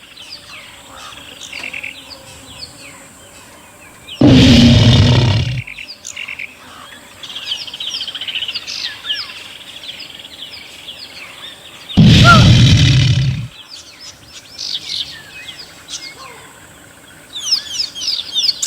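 Small birds chirping and twittering, broken twice by a loud animal roar about a second and a half long, once about four seconds in and again about twelve seconds in.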